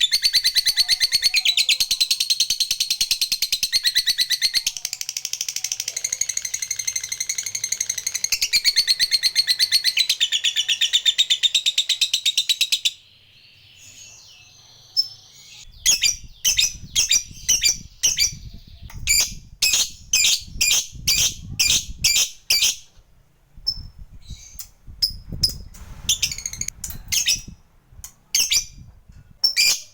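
Lovebird chattering in a long, very fast, high-pitched trill, the prized 'ngekek panjang' of a fighter lovebird, which stops abruptly about 13 seconds in. After a short pause the bird gives a run of separate short, sharp calls, about one or two a second.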